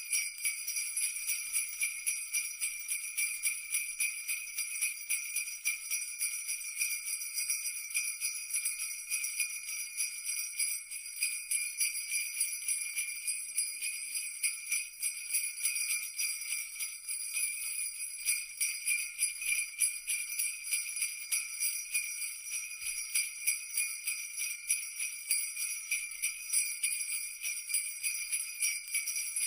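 Sleigh bells jingling continuously in a quick, even shaking rhythm, the 'shan shan shan' Christmas sleigh-bell sound, bright and high-pitched with no low sound under it.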